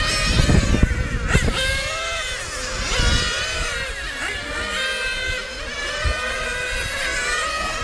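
Several glow-fuel two-stroke engines of nitro radio-controlled racing cars running at high revs, their overlapping whines rising and falling in pitch as the cars accelerate, brake and pass.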